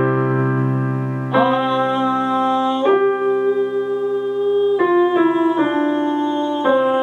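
A woman singing held notes on an "u" vowel over electric keyboard chords, part of a chest-to-head voice mixing exercise. The notes are steady, and the sung pitch and chords change every second or two.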